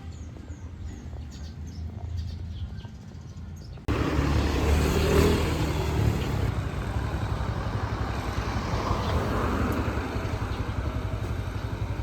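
Birds chirping over a low engine hum; about four seconds in, a sudden cut to a much louder motor vehicle engine running steadily with an even low pulse.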